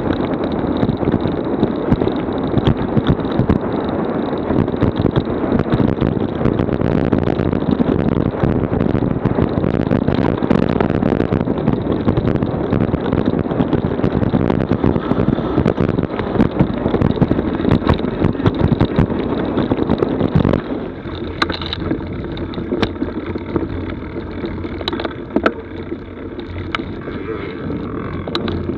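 Mountain bike rolling fast down a leaf-covered dirt trail: wind buffeting the camera's microphone over tyre noise, with frequent clicks and rattles as the bike runs over bumps. About two-thirds of the way through it gets quieter as the bike slows down.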